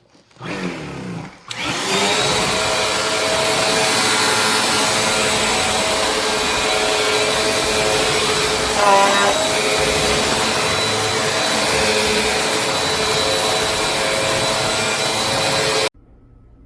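Bissell CleanView Compact Turbo upright vacuum starting up and running steadily with a motor whine. The pitch wavers briefly about halfway through, and the sound cuts off suddenly near the end.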